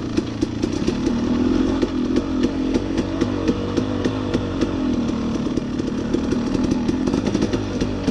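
Dirt bike engine running under load on a rough trail, its pitch rising and falling as the throttle is worked, with frequent sharp knocks and clatter from the bike.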